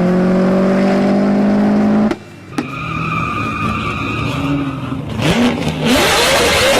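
Loud car engine and exhaust running with its note climbing slowly, cutting off abruptly about two seconds in. Then another engine is revved up and down repeatedly, growing louder and noisier near the end.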